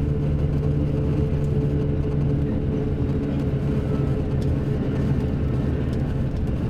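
Mercedes-Benz OM-457LA inline-six turbodiesel of a Busscar double-decker bus, running steadily under way with a low, even drone. The engine, nearly 7 years old and past 2 million km, is worn by the uploader's account.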